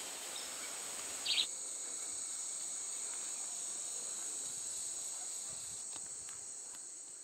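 A dense chorus of insects trilling steadily at a high pitch, with a short bird chirp about a second in. The chorus fades away near the end.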